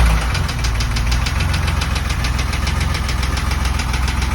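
BMW E23's M30B28 2.8-litre straight-six running just after starting, with a loud, regular knock about nine times a second. The owner finds a stretched timing chain when he opens the engine.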